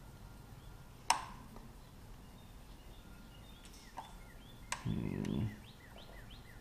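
A few sharp clicks, a bird calling in a quick run of short chirps, and a brief low rattling call about five seconds in.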